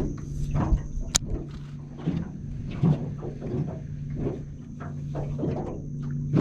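A boat motor humming steadily, with irregular knocks and slaps around the boat and one sharp click about a second in.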